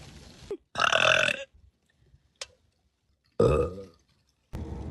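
A person burping on purpose, twice: one loud burp about a second in and a second, sharper one about two and a half seconds later.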